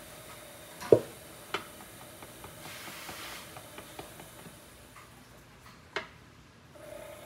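Pottery work on clay: a few sharp knocks, the loudest about a second in and another near six seconds, with light ticks scattered between and a brief hiss around three seconds, over a faint steady hum.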